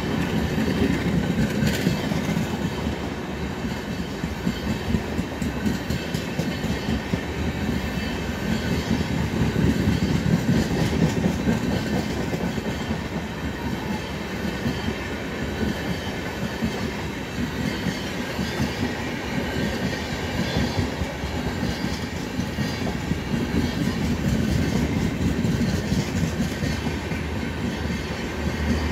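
Express train's passenger coaches rolling past at speed: a steady rumble of steel wheels on the rails with a clickety-clack over the joints.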